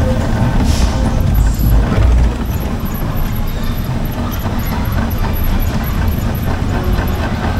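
Fairground ride running, heard from on board: a heavy, steady low rumble, with a short hiss about a second in and a slight drop in loudness a little after two seconds in.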